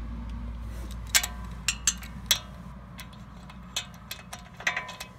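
Sharp, irregular metallic clicks and taps of a 15 mm socket being fitted onto a rear brake caliper bolt, over a low steady hum.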